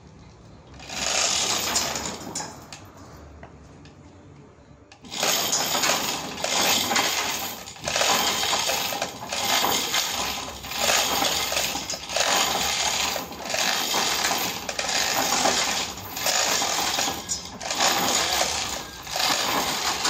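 Sawmill saw cutting through a trembesi (rain tree) log: a brief burst of cutting noise about a second in, then from about five seconds a loud cutting noise that swells and fades about once a second.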